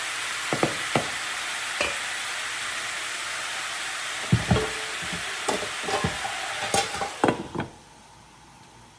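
Chicken pieces sizzling as they sear on high heat, with scattered knocks and scrapes of a utensil turning them. The sizzle drops away suddenly near the end.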